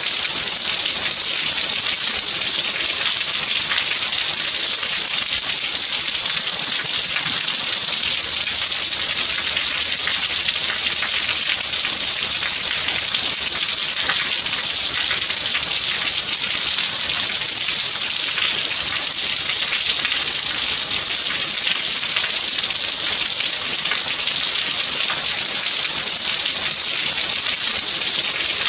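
Steady rain falling, an even, unchanging hiss.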